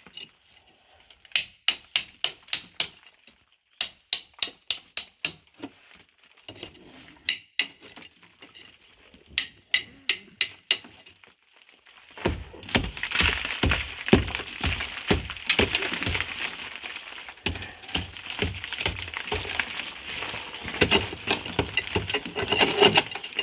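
Claw hammer striking and chipping at hardened cob in quick runs of sharp blows. From about halfway on, a louder, denser stretch of scraping and crumbling with many small knocks as chunks of earth break away.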